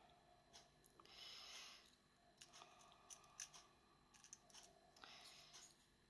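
Faint handling noises: scattered small clicks and soft rustles as sewing needles are fitted into a small lipstick-tube magnetic needle case.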